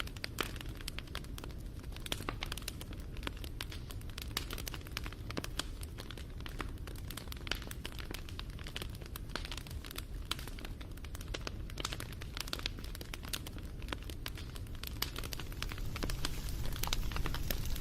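Wood fire crackling: dense, irregular pops and snaps over a low steady rumble, the rumble growing a little louder near the end.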